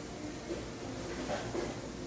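Busy fast-food restaurant background ambience: a steady wash of indistinct noise, with faint brief sounds rising over it about a second and a half in.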